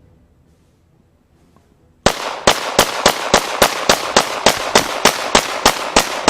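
Glock Gen 4 9mm pistol firing a rapid string of shots, about four a second, starting about two seconds in and keeping on without a stoppage as the full magazine is emptied: the pistol does not jam.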